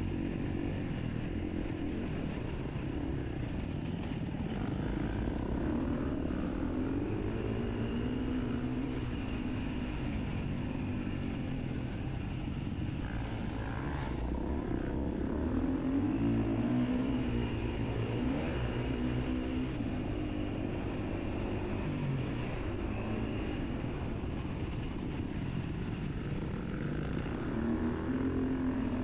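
Enduro dirt bike engine running and revving, its pitch rising and falling again and again, a little louder about halfway through and again near the end.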